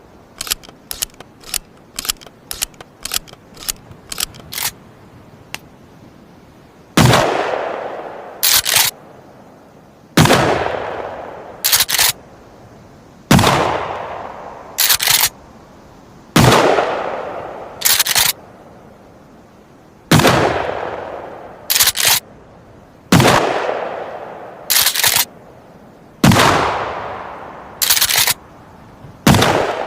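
A run of quick mechanical clicks, then a Remington 870 TAC-14 12-gauge pump-action firing about eight shots, one every three seconds, each shot echoing away and followed by the two-part clack of the pump being racked back and forward to chamber the next shell.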